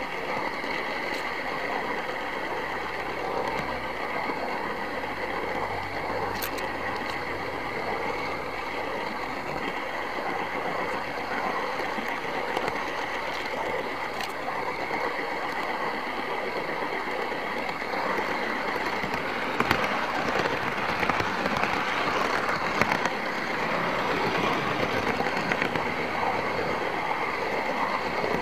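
OO gauge model train running along the track, heard from on board: a steady whirr of the small electric motor and wheels on the rails. It gets somewhat louder, with a few sharp clicks, about two-thirds of the way through.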